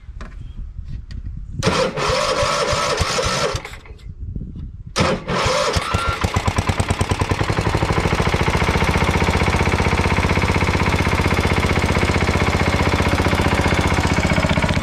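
Old Tecumseh engine on a garden tractor being cranked on its starter as it is brought back to life. It fires and runs briefly, falters around four seconds in, then catches again about a second later and settles into a steady run.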